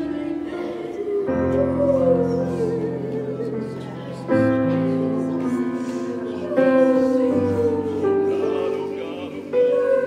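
Slow worship music: sustained instrumental chords changing every two to three seconds, with a voice twice singing a long note that slides slowly downward in pitch.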